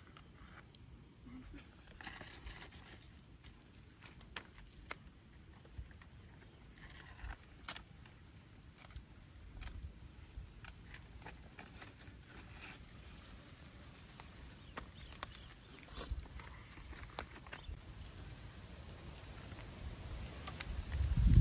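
Charcoal embers crackling under fish grilling on bamboo skewers, with scattered sharp pops. Behind them an insect chirps in a steady rhythm, about three chirps every two seconds. A low thump near the end.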